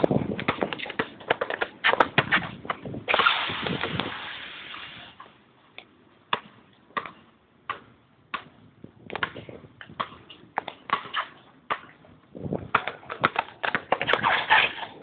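Basketball dribbled on a hard outdoor court: a run of short bouncing thumps, mixed with sneaker scuffs and steps, with a burst of rushing noise about three seconds in.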